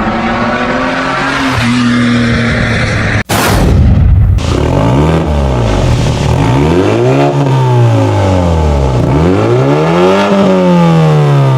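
BMW 3 Series engine breathing through a newly fitted aftermarket valved muffler: a steady held note, a sudden loud rushing burst about three seconds in, then the engine revved up and down about five times, the exhaust note rising and falling with each rev.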